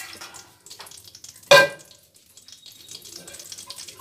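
Steel ladle stirring gram-flour batter cooking in sugar syrup in an aluminium kadai, with a soft bubbling under it. About one and a half seconds in, the ladle scrapes against the pan with a brief, loud metallic ring.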